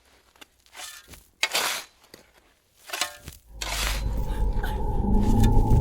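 Three short scraping, rustling noises about a second apart, then a low rumbling drone that swells from about three and a half seconds in, with a steady held tone joining it.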